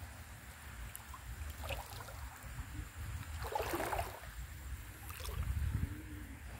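Water splashing and trickling as a gill net with small fish in it is pulled out of a stream by hand, with the biggest splash about three and a half seconds in, over a low rumble.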